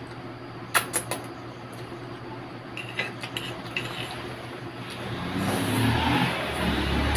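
A metal fork clinks sharply against a plate a few times while scooping noodles, with lighter ticks a couple of seconds later. From about two-thirds of the way in, a low vehicle rumble swells louder.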